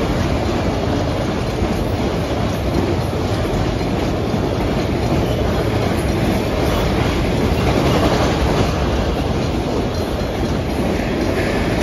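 Autorack freight cars rolling past steadily, their wheels rumbling and clacking on the rails.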